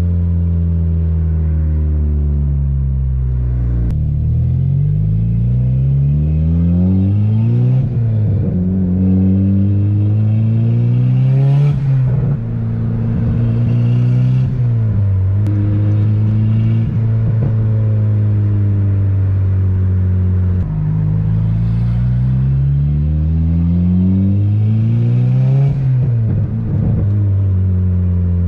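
Turbocharged Honda Civic Si K24 four-cylinder heard from inside the cabin, accelerating hard: the revs climb and drop again and again as it pulls through the gears, hold steady for a few seconds in the middle, then climb again. A few short sharp pops stand out near the shifts.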